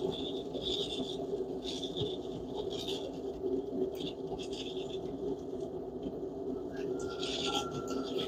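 Forge running with a steady rushing noise, with short hissing sounds recurring every second or so over it.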